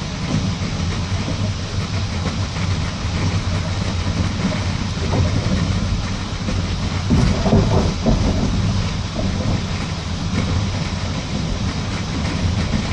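Passenger train running at speed, heard from inside the carriage: a steady low rumble with the clickety-clack of the wheels over rail joints, growing louder for a moment about seven seconds in.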